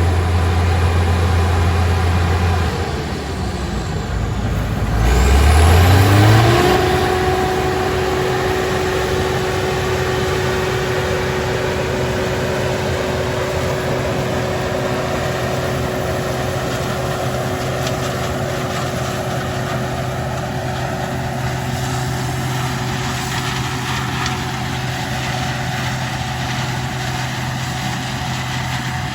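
Combine's diesel engine runs steadily, drops, then revs up about five seconds in and holds at speed, with a steady machinery whine over the engine hum: the combine throttled up to full working speed for harvesting corn.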